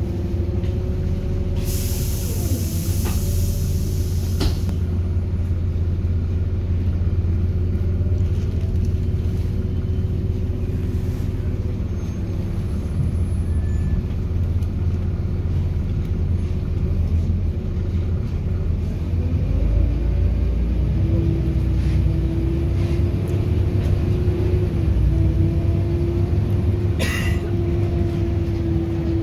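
Volvo B7RLE bus heard from inside: a low diesel rumble under a loud, steady cooling-fan whine. A burst of air hiss about two seconds in, and pitches that rise as the bus pulls through its ZF automatic gearbox about twenty seconds in.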